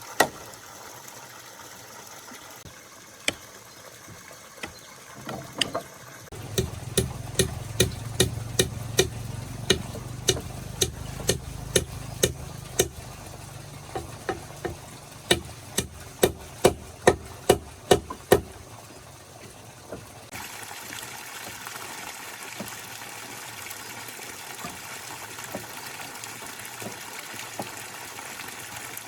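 Repeated sharp tool strikes, about two to three a second, with scattered single knocks before them. After that comes a steady noise like running water.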